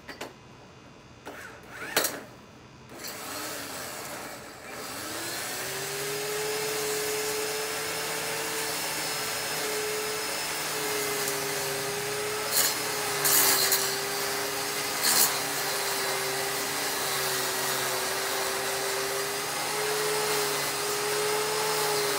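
Corded WORX WG896 electric edger: its motor spins up about five seconds in and then runs steadily with a constant hum while the blade cuts along the lawn edge beside the sidewalk. A few short sharp hisses come in the middle. It is a little noisy, with a high-pitched sound.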